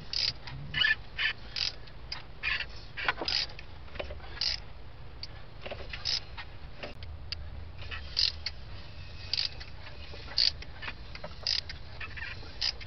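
A half-inch ratchet turns a Chevy 350 V8 over by hand with its spark plugs still in, in short clicking, creaking strokes at uneven spacing, more than a dozen of them. It is the engine's first rotation in years, and it turns freely against good compression, with the valves moving as they should.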